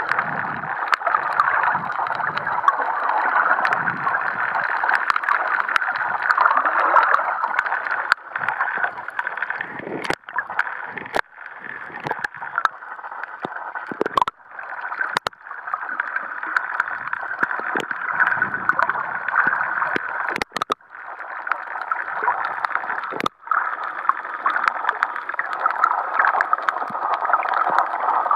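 Underwater sound picked up by a camera held below the surface over a coral reef: a steady crackling hiss of water, broken by several sudden short dropouts and clicks.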